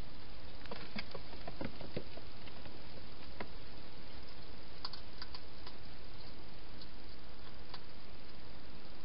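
Wild hedgehog eating at a food bowl, heard as scattered small clicks and crunches over a steady hiss. There is a busier run of clicks and rustles in the first two seconds, then sparser single clicks.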